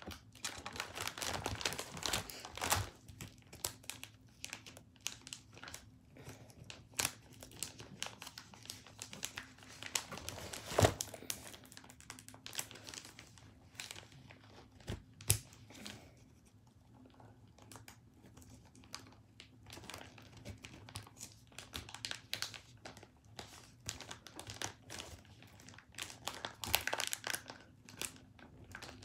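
Crinkling and rustling of paper and pages, with scattered clicks, as a puffy handmade card is worked into a pocket of a keepsake book. There are two sharper snaps, about 11 and 15 seconds in, and a quieter stretch just after.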